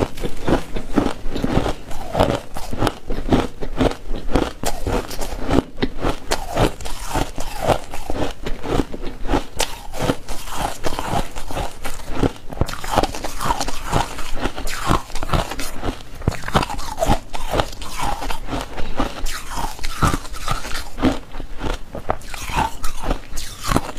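Ice being bitten and chewed close to the microphone: continuous, irregular crunching of cracking ice.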